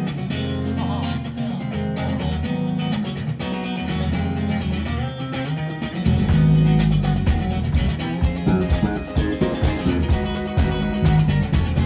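Live rock band playing a song intro: electric guitar, a Stratocaster-style guitar, over bass. About six seconds in the music gets louder and fuller as drums and cymbals come in.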